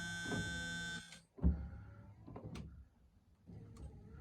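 Windshield wiper motor running with a steady whine and a regular thump at each sweep, switched off about a second in, followed by a knock and a few faint clicks.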